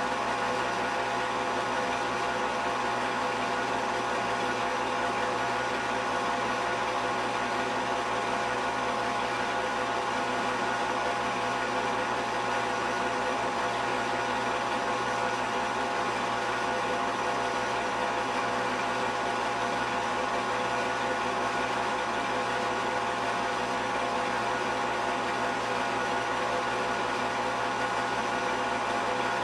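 Steady machine hum with hiss, made of several fixed tones that do not change in level.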